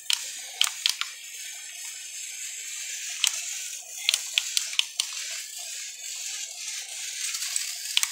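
Mini RC motorcycle running with a steady high whirring hiss from its motor and spinning gyro, broken by scattered sharp plastic clicks and taps as it tips and its wheel churns on the tile floor.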